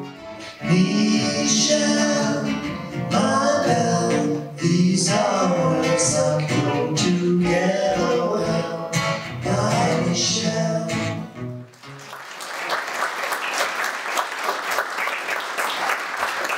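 A man singing a song into a microphone over acoustic guitar. The song ends about twelve seconds in, and audience applause fills the last few seconds.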